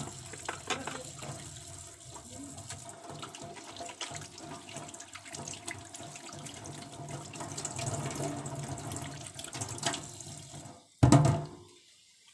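Kitchen tap running into a sink with light clatters of washing. About eleven seconds in there is one loud thud, and the running water stops.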